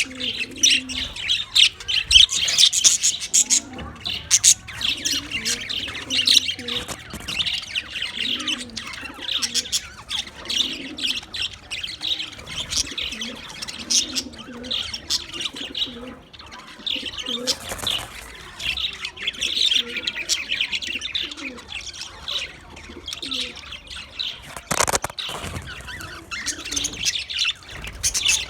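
Budgerigars chattering and chirping continuously, many quick overlapping high chirps. A brief sharp noise cuts across the chirping near the end.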